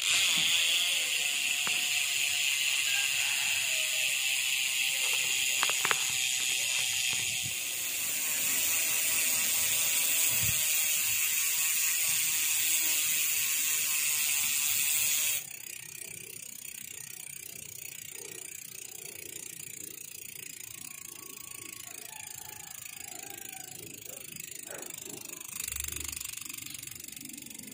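Freehub pawls of a Lynx sealed-bearing MTB rear hub buzzing in a fast, continuous ratchet as the wheel spins freely. About halfway through the buzz drops off sharply and goes on much quieter.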